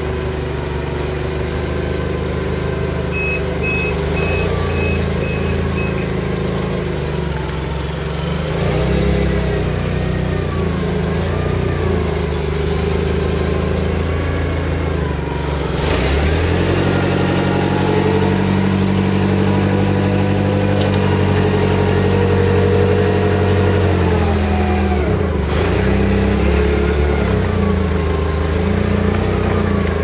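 Propane-fuelled Caterpillar forklift engine running steadily, its speed rising and falling a few times as the hydraulic mast lifts the bin of grape must. A short run of faint beeps comes a few seconds in.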